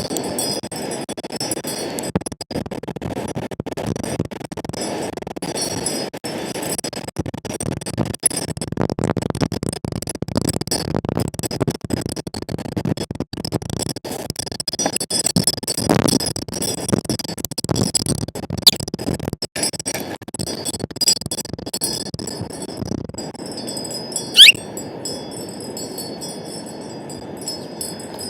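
Wind gusting over the microphone while wind chimes tinkle steadily. Near the end comes a single loud, short chirp that sweeps sharply down in pitch.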